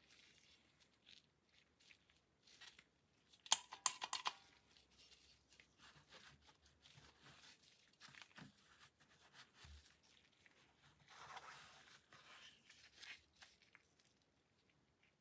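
Faint handling sounds from nitrile-gloved hands working a pistol magazine and the hard case's foam: rustling and crinkling, with a quick cluster of sharp clicks about three and a half seconds in. The pistol is lifted out of the foam near the end, with a further soft rustle.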